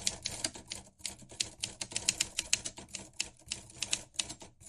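Typewriter keys clacking in a quick, uneven run of strokes, about five a second, with a brief pause about a second in. It is a sound effect for lettering being typed out on screen.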